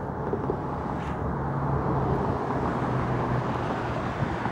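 Boeing 757 jet airliner on final approach heard from a distance: a steady rush of jet engine noise with a low hum, growing slightly louder.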